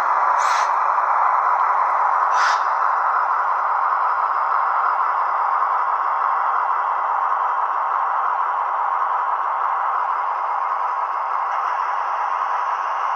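Model train running along the track: a steady rattle of small metal wheels on the rails. Two brief high squeaks come about half a second and two and a half seconds in.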